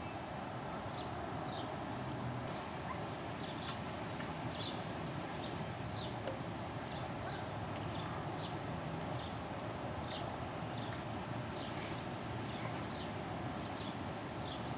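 Wind rushing steadily through trees ahead of a thunderstorm, with a bird repeating short, falling chirps, one or two a second.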